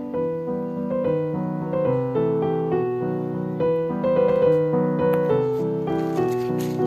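Background piano music playing a gentle melody, the notes changing every fraction of a second.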